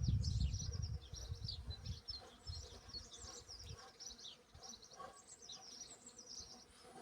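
Small birds chirping and twittering in a busy chorus of quick, repeated high phrases. A low rumble during the first second dies away.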